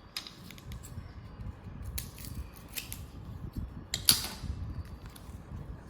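Scissors snipping open a chocolate bar's plastic wrapper, a series of sharp snips and crinkles, with a louder crackle of the wrapper about four seconds in.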